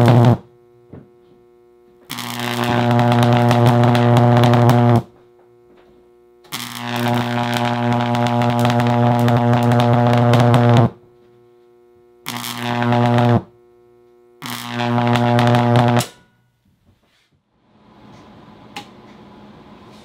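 High-voltage arcs from two microwave oven transformers in series with resonant capacitors, drawn out between arcing sticks, giving a loud, deep mains buzz. The buzz cuts off just after the start as an arc breaks, then returns in four bursts of one to four seconds each, breaking off between them.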